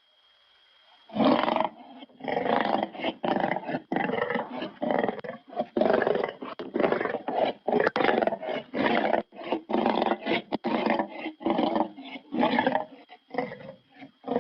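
Lion growl and roar sound effect, pitched low, heard as a rapid string of short growls, about two a second, with brief gaps between them, starting about a second in.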